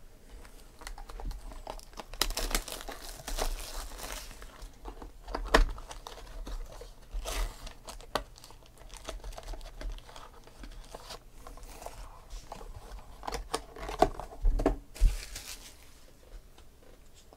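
A box of baseball card packs being opened by hand: wrapper and cardboard crinkling and tearing in irregular bursts, and the packs sliding against each other. Three sharp knocks come about six seconds in and twice about fourteen to fifteen seconds in.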